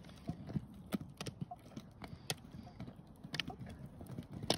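Roller-ski pole tips clicking on asphalt as a skier double-poles: a string of sharp, irregular clicks, some in quick pairs, over a faint low rumble.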